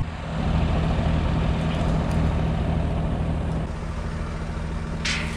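Fendt tractor's diesel engine idling steadily, its note shifting slightly about two-thirds of the way through. Near the end a metal field gate starts to clatter.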